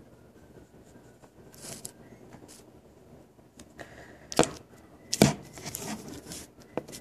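Close handling noise against the microphone: scattered light clicks and brief rustles as fingers touch and shift the recording phone, with two sharp knocks about four and five seconds in.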